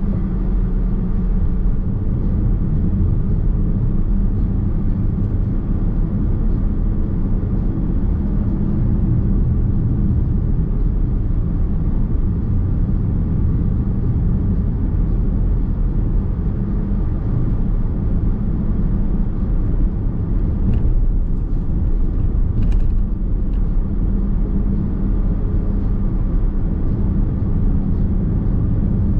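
Nissan X-Trail Hybrid driving on the road, heard from inside the cabin: a steady low rumble of tyres, road and drivetrain, with a few light clicks about three quarters of the way through.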